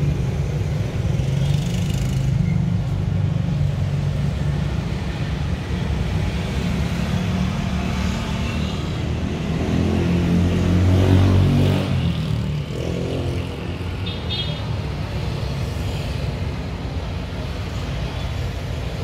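Road traffic: a steady low engine rumble. A vehicle passes close, rising to loudest about eleven seconds in, then fading.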